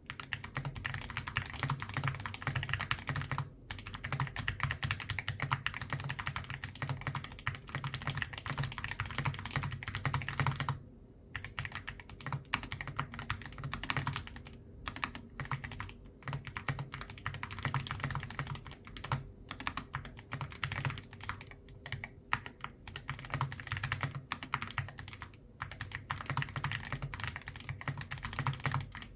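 Typing sound test on an Akko MOD007B HE hall-effect keyboard with Akko Cream Yellow magnetic switches, PBT cherry-profile keycaps and a polycarbonate case. Fast, continuous keystroke clatter with short pauses twice, the keystrokes coming in looser runs in the second half.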